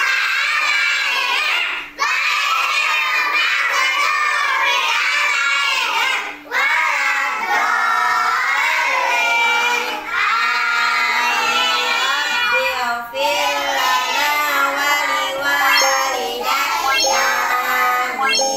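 A group of young children singing together in unison, with short breaths between phrases.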